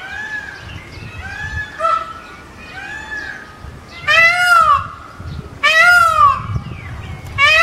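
Indian peafowl (peacock) screaming: fainter calls repeat about once a second at first, then two loud screams come about a second and a half apart, with a third starting right at the end.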